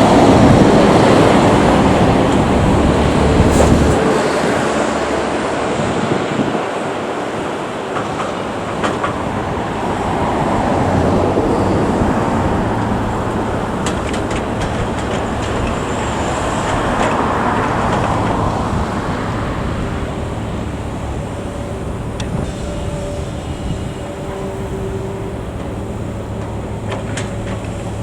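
Heavy construction machinery running: a diesel engine with a steady low hum, swelling louder and easing back a few times.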